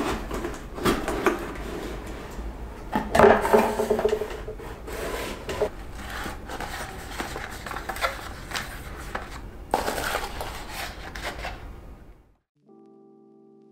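A cardboard gift box being opened and handled, with hands rummaging through crinkly shredded-paper fill: irregular rustling and scraping with small knocks. It stops abruptly near the end, and faint music begins.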